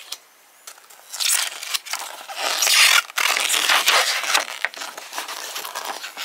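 A folded paper poster being unfolded by hand, with the paper rustling and crackling. The sound is loudest about three seconds in, breaks off for a moment, then carries on in smaller crinkles.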